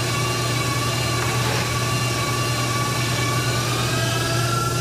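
Electric stand mixer's motor running steadily with a low hum and a whine, the whine rising in pitch near the end as the mixer speeds up.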